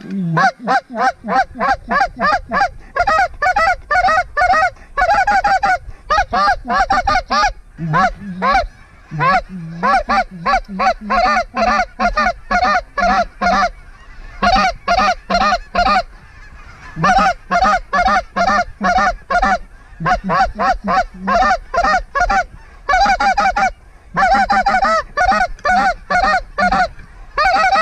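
Goose call blown hard in quick runs of honks and clucks, about four to five notes a second, some breaking from a low note to a high one, with short pauses between runs: calling to a circling flock of Canada geese to bring them into the decoys.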